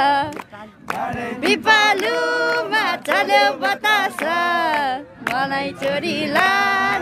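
Voices singing a song together, holding long notes between shorter phrases, with a few short sharp knocks between the phrases.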